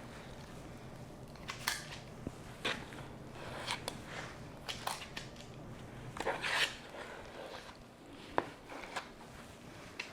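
Irregular clicks, rustles and light knocks of kitchen items being handled and shifted about, as freezer contents are rearranged to make room for baking trays. A faint steady hum runs underneath.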